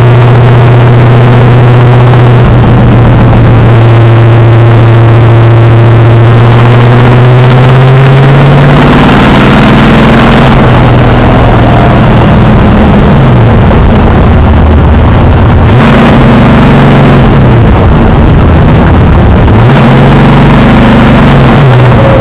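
Stock car's racing engine heard from inside the cockpit, very loud and overloading the recording. It holds a steady, slowly climbing pitch for the first nine seconds or so, then drops and climbs back again a few times as the throttle is lifted and reapplied.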